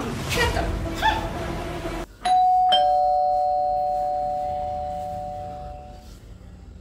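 Two-tone ding-dong doorbell: a higher chime and then a lower one about half a second apart, both ringing on and fading over about three seconds. It follows background music that stops about two seconds in.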